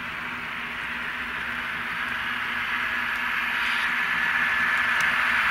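Sound-equipped N scale ScaleTrains GE ET44AC model diesel locomotive running, its ESU LokSound decoder's engine sound played through the model's small speaker as a hissy rumble with a steady whine, growing louder as the locomotive comes close.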